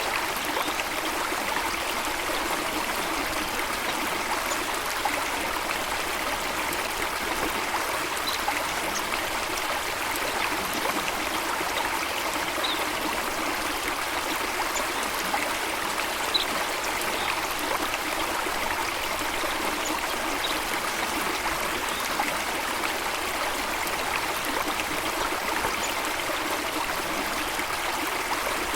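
Running water of a stream rushing steadily, with a few faint, brief high blips now and then.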